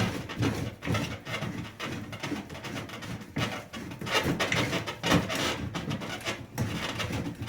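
Vent pipe being worked loose from its fitting on a sewage pump pit: irregular knocks, scrapes and rubbing of pipe against its coupling.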